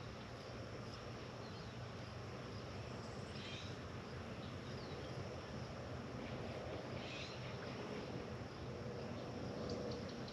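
Outdoor ambience: a steady low background hum with short bird calls about every three to four seconds, over a faint, steady high insect buzz.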